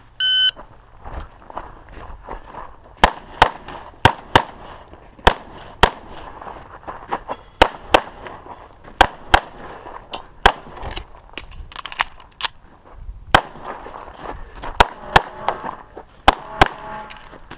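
An electronic shot timer gives a short start beep, then a 9mm EAA/Tanfoglio Witness Elite Limited Pro pistol fires about eighteen shots, mostly as quick double-taps with pauses of a second or so between pairs.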